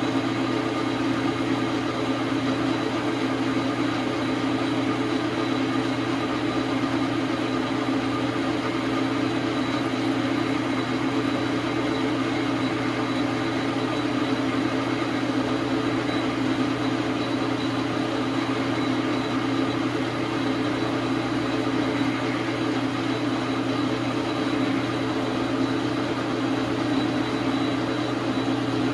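Dar Sin 12x37 manual metal lathe running steadily at a constant speed, giving an even motor and gear hum that does not change.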